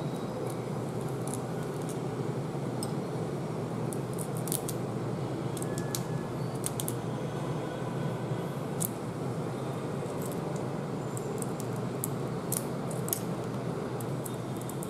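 Cooked shrimp shell crackling in many small, irregular clicks as it is peeled apart by hand, over a steady background hum.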